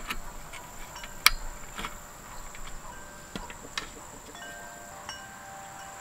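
Small clicks and taps of cable connectors and plastic being handled as SATA power and data cables are plugged into a network video recorder's circuit board and hard drive. The clicks are scattered and irregular, the loudest about a second in. Faint ringing tones sound in the background.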